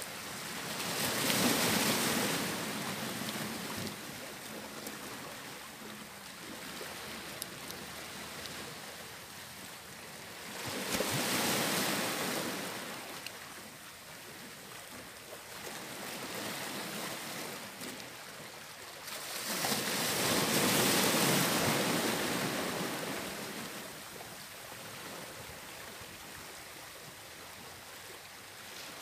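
Sea surf washing onto a rocky shore, swelling three times: about a second in, about eleven seconds in, and around twenty seconds in. Each surge fades back to a lower steady wash.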